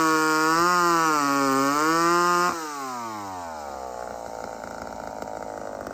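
Older two-stroke chainsaw running at high revs, its pitch rising and falling as the throttle is worked. About two and a half seconds in, the throttle is released and the revs glide down to a quieter idle.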